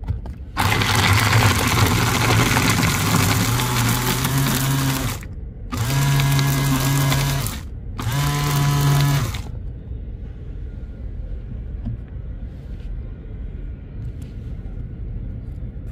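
Electric herb grinder running in three bursts: one of about four and a half seconds, then two shorter ones of under two seconds each, its motor hum rising a little in pitch as it grinds the cannabis buds. Only faint low background noise follows.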